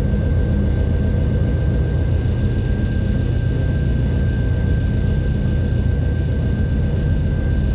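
Train running with a steady low rumble and a thin, steady high whine over it.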